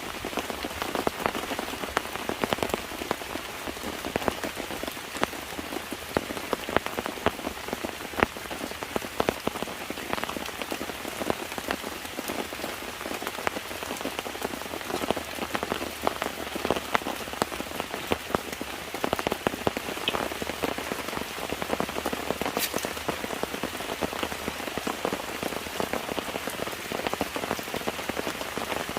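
Steady rain falling, with many single drops striking close by in an unbroken patter.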